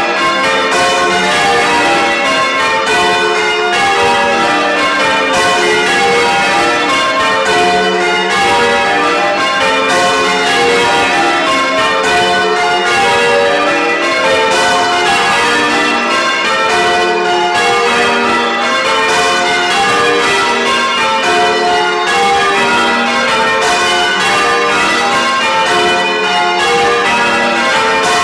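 A ring of church bells being rung full-circle in change ringing: the bells strike one after another in a steady, unbroken succession.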